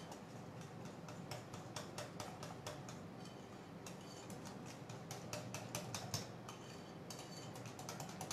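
Wire whisk clicking rapidly and unevenly against a glass bowl as a thin, runny crepe batter is whisked.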